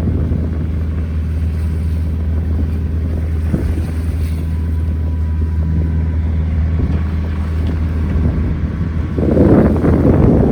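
Sailboat's engine running at a steady low hum as the boat motors in, with wind buffeting the microphone and a louder rush near the end.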